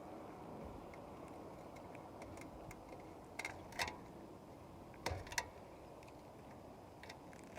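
Scattered sharp clicks and taps of hands and tools working on a sheet-metal roof whirlybird vent as it is taken apart, a handful of louder clicks in the middle over a steady low background rumble.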